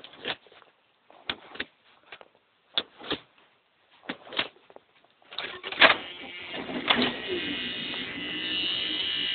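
Cold start of a 1987 Dodge Omni's 2.2-litre four-cylinder engine with a Holley two-barrel carburettor, heard from inside the cabin. A few light clicks and knocks come first; then, about five seconds in, the starter cranks briefly, the engine catches and settles into a steady run.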